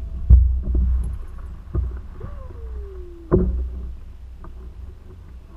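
Three hollow knocks on a canoe's hull, the first the loudest, over a steady low rumble, with a brief falling whine between the second and third.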